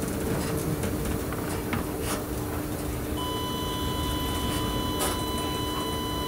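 Steady hum and rumble in an electric train's cab while running on the line, with a few faint knocks. About three seconds in, a continuous electronic beep starts and holds steady, typical of a cab warning signal.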